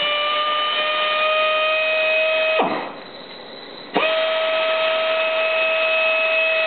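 RAD 10GX pneumatic torque wrench's air motor running with a steady, high whine. About two and a half seconds in it winds down, and after a short pause it starts again suddenly and runs steadily.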